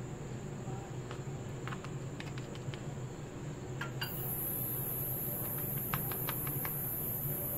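A metal spoon spreading ketchup over a paratha, making faint scattered light clicks against a steady background hum and high whine. A louder high hiss joins about four seconds in.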